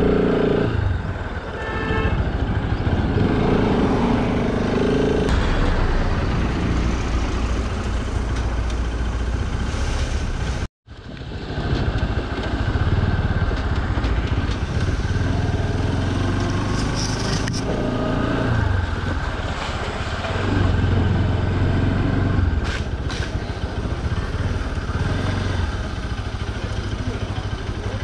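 Motorcycle engine running while riding, with road and wind noise over the camera microphone. The sound cuts out for an instant about ten seconds in, then carries on.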